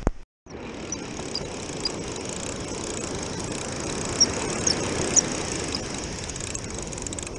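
Ocean surf breaking on a sandy beach, with wind rushing over the microphone. A few short high squeaks come through between about one and five seconds in.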